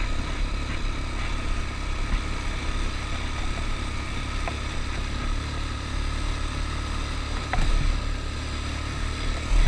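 ATV engine running steadily, a constant low rumble.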